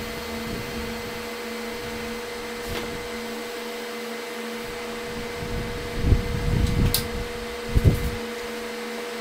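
Steady mechanical hum of a running motor at one constant pitch, with a few low rumbles and a sharp click between about six and eight seconds in.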